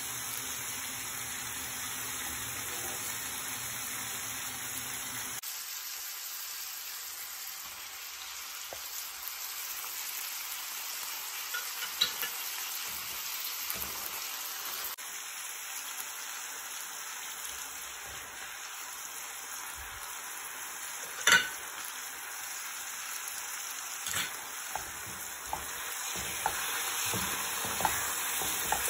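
Food sizzling in a frying pan as it is stirred, with scattered sharp clicks of the utensil against the pan and one louder knock about two-thirds of the way through.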